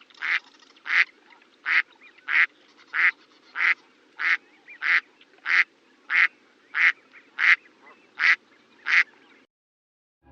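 Duck quacking in a steady, even series of about fourteen short quacks, roughly one and a half a second, which stops shortly before the end.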